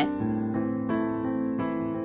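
Background music: piano chords, a new one struck about every 0.7 seconds.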